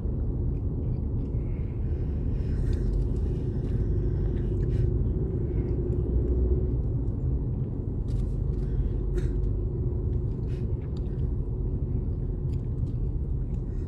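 Steady low rumble of engine and tyre noise heard from inside a vehicle's cabin while it is driven, with a few light ticks now and then.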